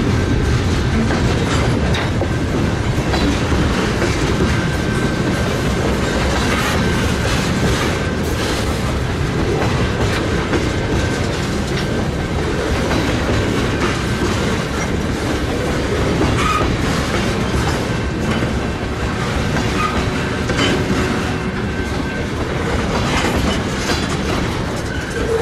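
Lake State Railway freight train rolling past, its cars' wheels clattering steadily over the rails.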